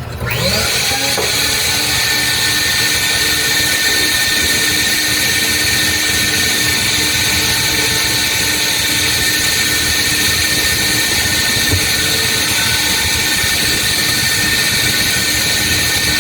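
Car wash vacuum switching on, its motor spinning up with a rising whine, then running steadily with a loud rushing hiss and a few steady tones.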